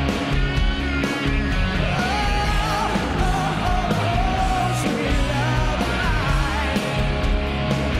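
Rock music with a singing voice over a steady beat and bass.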